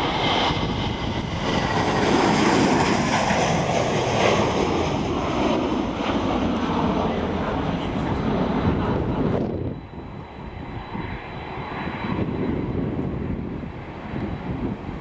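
A Boeing 747-400 freighter's four jet engines running as it moves along the ground: a loud rumble with a faint whine on top. About ten seconds in the sound drops abruptly and goes on quieter, with a thin steady high whine.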